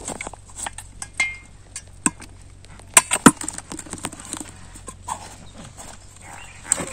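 Irregular sharp knocks and wet slaps of a metal bowl and fish being handled, the loudest a quick cluster about three seconds in as small fish are tipped into a plastic bucket.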